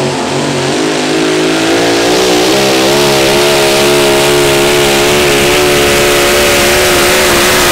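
Super modified four-wheel-drive pulling truck's engine at full throttle on a pull, rising in pitch over the first few seconds and then holding high with a slight waver.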